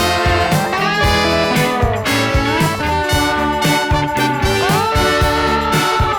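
Background music: an upbeat swing-jazz style tune led by brass horns, with sliding notes over a steady drum beat and bass.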